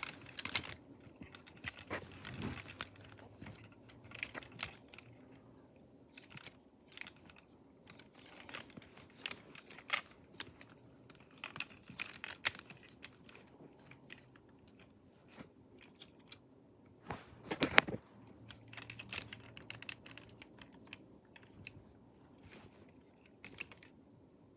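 Scattered light clicks and rustles of a plastic toy figure being handled, with a sharper knock about 17 seconds in.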